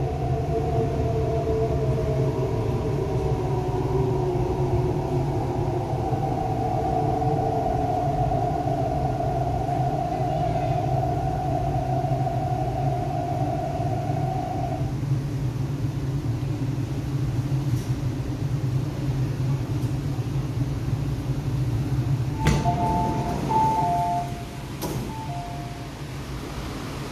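MTR R-Train electric multiple unit running and braking into a station, heard from inside the car: a steady low rumble with a motor whine that falls in pitch and cuts out about halfway. Near the end the train comes to a stop and the rumble drops, with a couple of clicks and several short two-note electronic beeps.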